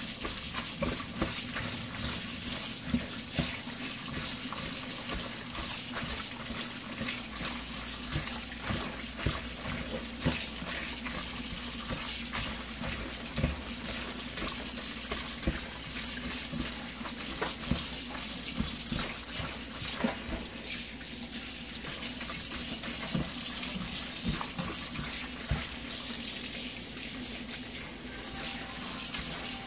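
Kitchen tap running into a sink, with splashing and frequent small knocks and clicks as things are washed under the water.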